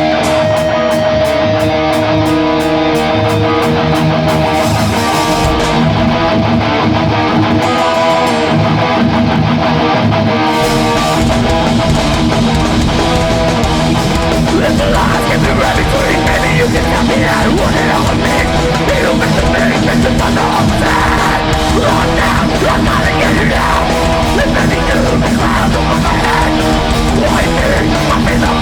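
Live metallic hardcore band playing loud, distorted heavy guitar riffing. About ten seconds in, the full band's low end and drums come in under the guitars.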